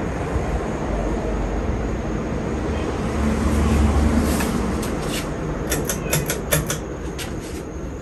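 Hunter Dominion 44-inch ceiling fan running, a steady low rumble and rush of air, with a quick cluster of clicks about six seconds in.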